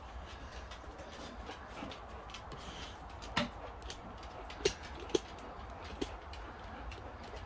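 A steady low rumble with four short sharp knocks in the middle, the loudest coming just before the fifth second.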